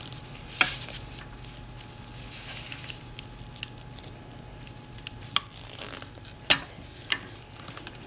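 Screwdriver tip scraping and clicking against a stuck hose fitting on a Subaru EJ25D engine's intake manifold: soft scraping with a few scattered sharp clicks, the loudest about six and a half seconds in.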